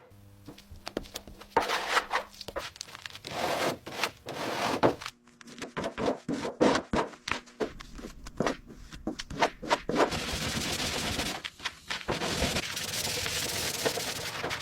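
Workshop tool noises on the Jeep's chassis: a run of sharp clicks and knocks with metal scraping, then a steady hiss from about ten seconds in.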